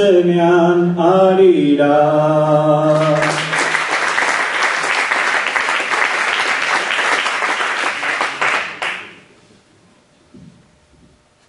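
A man's unaccompanied voice sings the closing line of an improvised Basque verse (bertso), ending on a held low note. Audience applause follows for about five seconds and dies away about nine seconds in.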